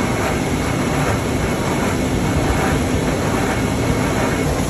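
Snack-factory machinery running with a steady rumble and hiss, as a rotating seasoning drum tumbles puffed corn rings. A thin, steady whine sits over the noise.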